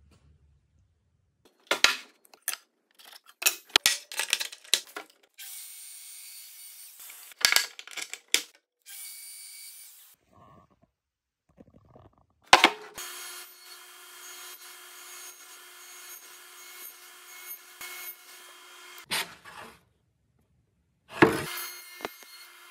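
Workshop tool sounds: first a run of sharp knocks and clicks of wood and clamp hardware being handled, with a few short stretches of hiss. Then a power tool's motor runs steadily for about six seconds with a steady hum and stops. Near the end a saw starts up and cuts into a wooden board.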